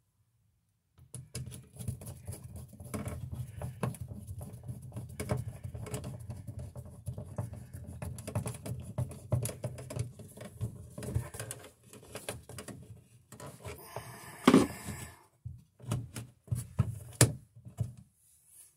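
Hand screwdriver driving a long receptacle mounting screw into the wall box: a steady run of small scraping clicks for about ten seconds. Then come one louder knock and a few separate clicks and taps as the GFI receptacle is handled.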